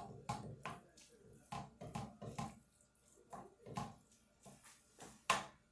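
A cooking utensil knocking and scraping in a frying pan, a string of irregular short knocks while ground beef is stirred and broken up, with the loudest knock near the end.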